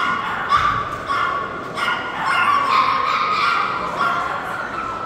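Dogs barking and yapping repeatedly, short barks following one another about every second.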